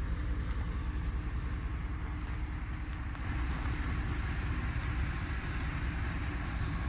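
Dodge Ram's 5.9-litre 360 Magnum V8 running steadily on its stock exhaust, a deep, evenly pulsing engine note. It gets slightly louder about three seconds in.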